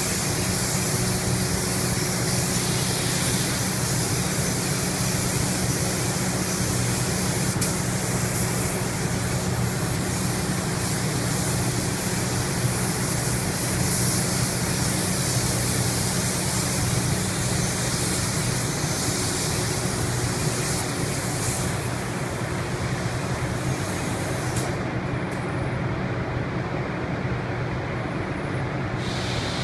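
Spray gun hissing as paint colour is applied, over a steady low machine drone. The hiss cuts off about five seconds from the end, and a short burst of it comes back near the end.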